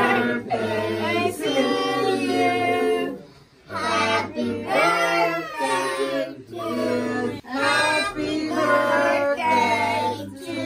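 A group of children and women singing the birthday song to a child sitting before lit birthday candles, in sung phrases with a short pause between lines.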